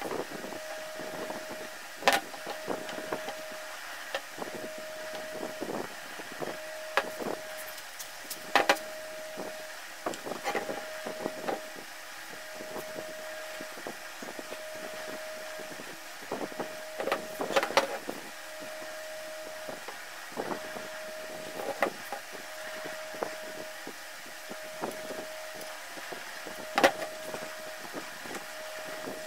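Metal motorcycle parts, a bracket and a swingarm, being handled and set down on a wooden workbench: scattered knocks and clinks, the loudest a little after two seconds, near nine seconds and around seventeen to eighteen seconds. Behind them a steady tone repeats in long beeps about every two seconds.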